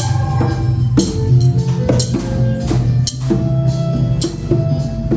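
Music with drums and percussion keeping a steady beat, with pitched notes over a sustained low bass.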